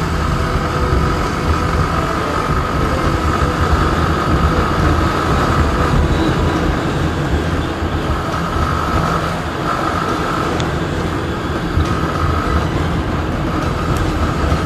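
Motorcycle riding at speed: the engine runs steadily under heavy wind and road rush on the mic, with a steady tone that fades in and out several times.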